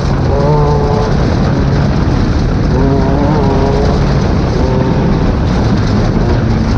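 Class 10 off-road race car's engine running hard, its pitch shifting up and down with the throttle, over a loud, steady rush of noise.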